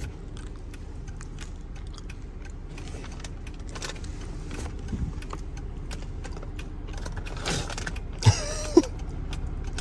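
Inside a moving car: a steady low road and engine rumble with small rattles and clicks from loose things in the cabin. Near the end come two sharp knocks and a brief pitched call.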